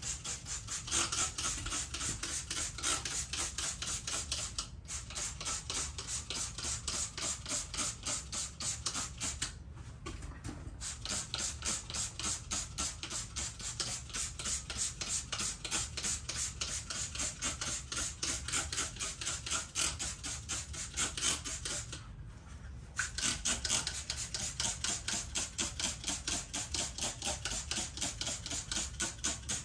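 Hand trigger spray bottle squirted in quick repeated squeezes, about three hissing sprays a second, with two short pauses, about a third of the way in and again about three quarters of the way in.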